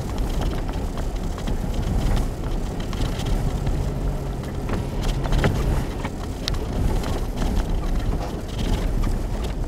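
Inside the cabin of a Nissan Xterra driving slowly through deep snow: steady engine and tyre rumble, with scattered small clicks and knocks.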